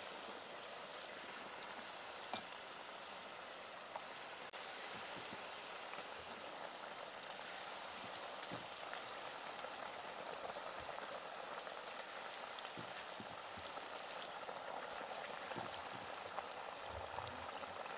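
Battered bamboo shoot pieces deep-frying in a stainless steel pot of hot oil: a steady sizzle of bubbling oil with a few sharp pops.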